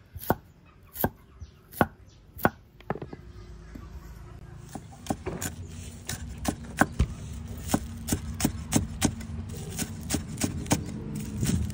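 Knife chopping shallots thin on a cutting board: a run of sharp, irregular chops, coming quicker from about five seconds in. A low steady hum runs underneath from about four seconds in.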